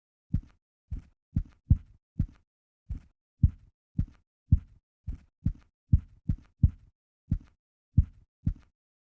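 Typewriter keys struck one after another at an uneven pace of about two a second, each stroke a dull thud with a faint click and a small rebound tap just after.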